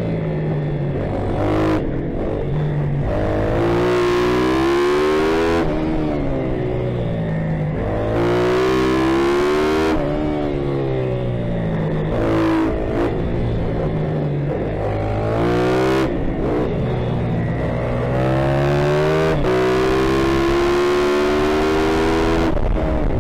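YCF pitbike's single-cylinder four-stroke engine at race pace, heard from the rider's helmet: its pitch climbs in repeated sweeps and falls back every couple of seconds as the bike accelerates and backs off.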